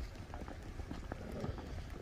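Footsteps on pavement: a quick, irregular run of short steps, over a steady low rumble.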